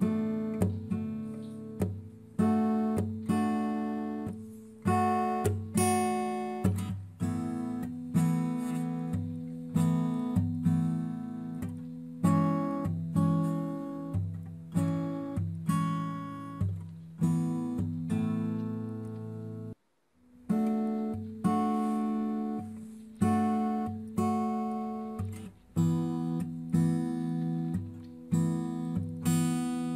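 Acoustic guitar background music: plucked notes and chords, each fading before the next. It breaks off briefly about two-thirds of the way through, then resumes.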